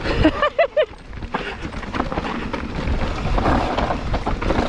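Mountain bike riding down a dirt trail: rushing wind on the microphone and a steady rattle and knocking of tyres and frame over the bumpy ground. A short run of pitched notes sounds briefly near the start.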